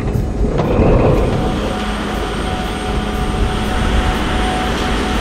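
Airport crash tender's engine and fire pump running while its roof turret sprays a powerful jet of water: a steady mechanical drone mixed with an even rushing hiss.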